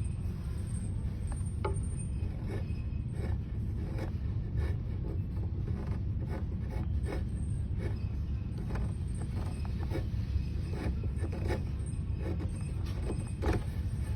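Small, irregular clicks and light scrapes of hand-tool work, about one or two a second, over a steady low rumble.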